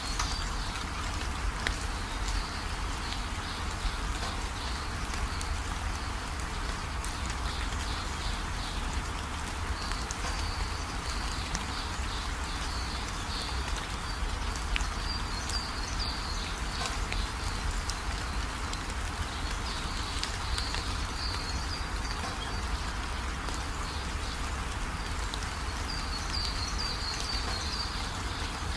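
Forest ambience: a steady hiss with a low rumble underneath, and bursts of high, rapid chirping that come and go every few seconds.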